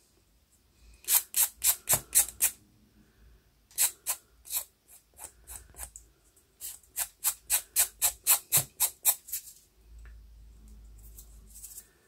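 A nail file rasping in quick back-and-forth strokes against the edge of a glass cabochon, filing off overhanging paper and glue that has squeezed out at the side. It comes in several runs of strokes, about four a second, with short pauses between.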